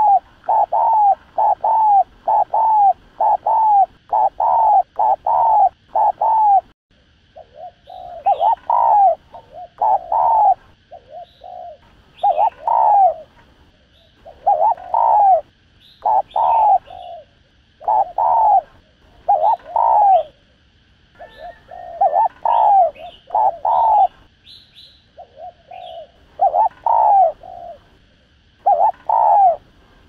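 Spotted dove cooing in the excited style keepers call 'thúc gù'. For about the first seven seconds it gives a fast run of short coos, about two a second. After that the coos come in short groups every two seconds or so, with faint higher chirps between them.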